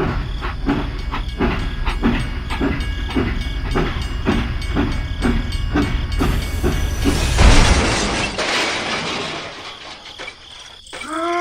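Train running over a low rumble with a regular clickety-clack, about two to three clacks a second. This gives way to a burst of hiss. Near the end a short whistle rises and falls.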